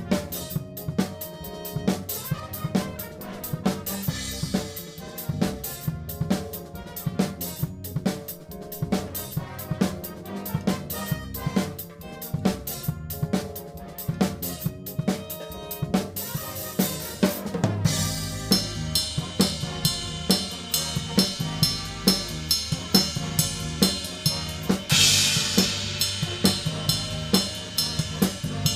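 Drum kit played in a big-band tune: snare, bass drum, hi-hat and cymbals keeping a steady beat under sustained band lines. About 18 seconds in the band gets fuller and louder, with a bright cymbal wash about 25 seconds in.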